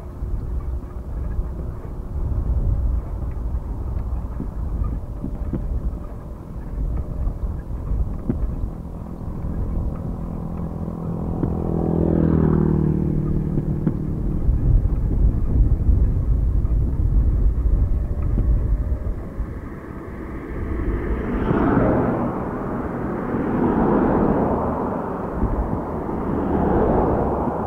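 Wind rumbling on the microphone of a camera carried on a bicycle along a road. About twelve seconds in, a motor vehicle passes, its engine note dropping in pitch as it goes by. Near the end, a rushing noise swells three times.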